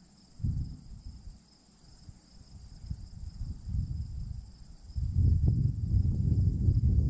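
Steady insect chorus, a continuous high trilling in two bands, under irregular low rumbling noise on the microphone that grows much louder about five seconds in.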